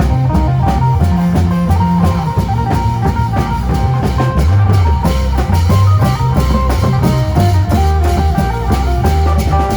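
Isan lam phloen music played loud on an amplified phin, the plucked northeastern Thai lute, over a drum kit and bass with a steady driving beat.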